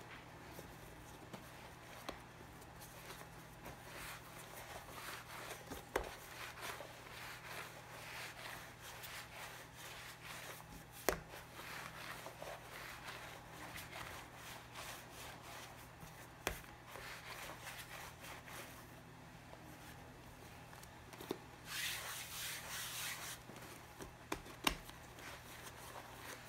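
Hands rolling strands of challah dough back and forth on a floured stone countertop: soft rubbing, louder for a moment about 22 seconds in, with a few light knocks spread through it.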